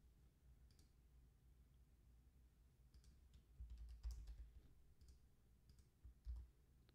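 Faint computer keyboard typing and mouse clicks: a few scattered light clicks, with a couple of low bumps around the middle and near the end.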